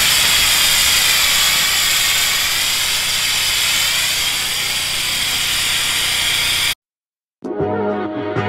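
Pressure-washer wand with an X-jet nozzle spraying diluted cleaning chemical onto wooden decking: a loud, steady hiss that cuts off abruptly about seven seconds in. Background music starts just after.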